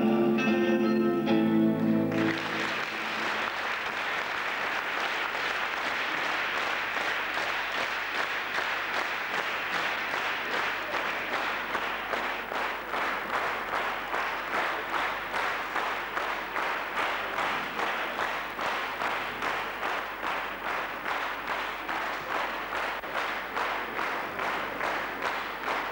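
The last notes of a song on classical guitar with voice end about two seconds in, and an audience in a hall breaks into applause. About ten seconds in the applause settles into rhythmic clapping in unison on a steady beat.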